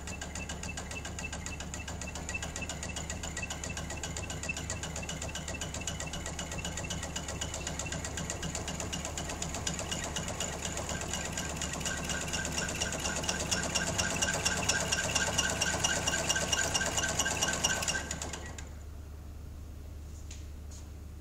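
Inerter vibration-isolation rig with a ball-screw and flywheel running, making a fast, even mechanical rattle with a whine. It grows louder, then cuts off suddenly about 18 seconds in, leaving a low steady hum.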